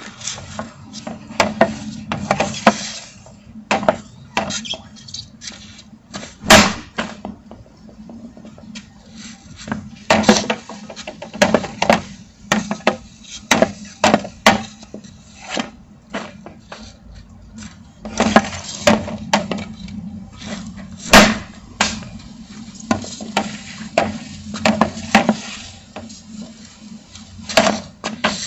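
Ice hockey stick with a wax-coated, untaped blade shooting pucks off pavement: a run of sharp, irregularly spaced cracks and knocks as the blade hits pucks and ground, a few much louder, with scraping between shots.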